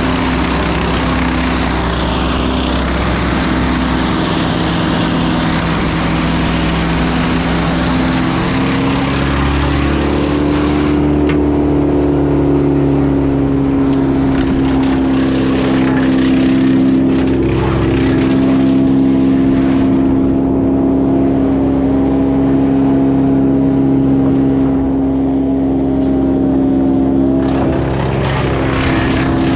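A motor engine running steadily at a constant speed, its pitch shifting slightly about a third of the way in, with a duller, muffled stretch through the middle.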